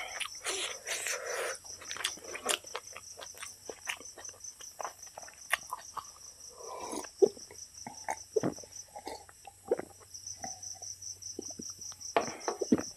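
Close-up eating sounds: fingers mixing rice and dal on a steel plate, with wet chewing and lip smacks, and a gulp of cola about halfway through. Crickets chirp steadily in the background.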